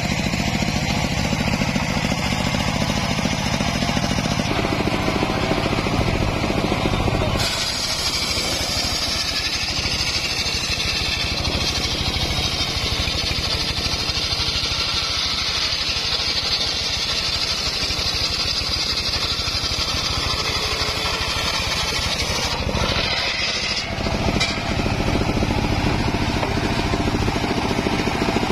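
Homemade engine-driven circular sawmill running, its large blade ripping acacia logs lengthwise under a steady engine drone. About seven seconds in the cutting noise turns brighter and hissier, and it briefly changes again a little after twenty seconds in.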